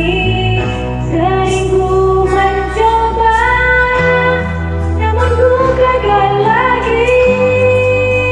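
Backing music of a pop ballad: a sustained, gliding melody line over steady bass notes, with no words sung.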